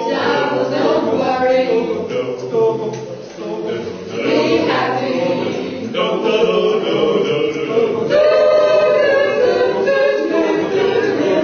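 A choir singing in parts, ending with a long held chord over the last few seconds.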